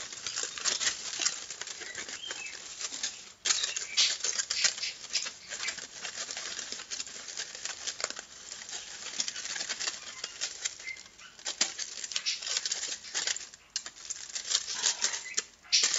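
Crumpled aluminium foil crinkling as it is handled in the hands, a dense run of small crackles. The crinkling stops briefly about three seconds in and again just before the end.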